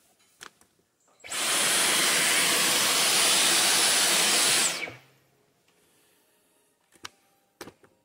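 Dyson V15 cordless stick vacuum switched on, running steadily with a high whine for about three and a half seconds, then switched off. A few light clicks of handling come before and after.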